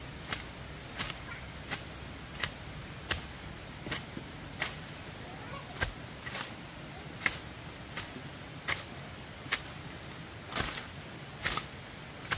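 A run of sharp knocks or clicks, a little more than one a second and fairly regular, over a steady low background.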